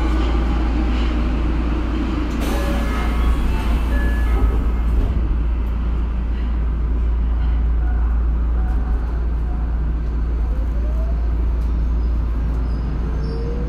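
Tokyo Metro Marunouchi Line 02 series subway train running, heard from inside the car: a steady, loud low rumble of the car on the rails. A tone rises in pitch near the end.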